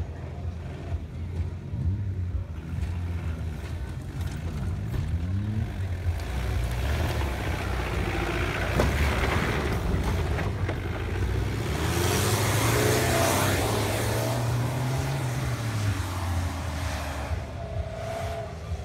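Off-road SUV engines revving up and down as they drive a dirt course, the pitch rising and falling several times. About two-thirds of the way through there is a brief rush of hiss.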